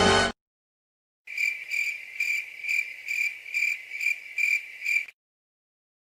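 Cricket chirping in about nine even, high-pitched chirps, roughly two a second, after music cuts off at the start. This is the stock 'crickets' sound effect.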